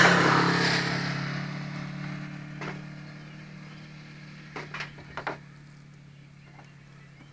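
A motor vehicle goes by, its noise fading away over the first few seconds, over a steady low engine hum. Around the middle come a few sharp clicks and clacks of cartridges being handled in a metal ammo can.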